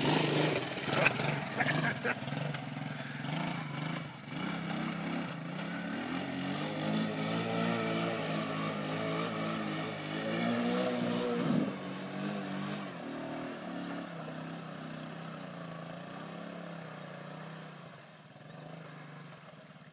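Honda ATC 185 three-wheeler's single-cylinder four-stroke engine revving unevenly as it pulls through mud, its pitch rising and falling, and growing fainter near the end as the machine moves off.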